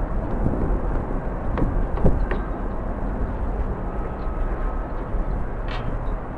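Steady outdoor noise of strong wind on the microphone mixed with the distant sound of jet airliners, with a few faint clicks.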